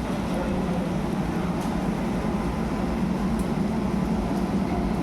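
Steady low rumble with a constant hum, the sound of a train or electric locomotive running at the platform.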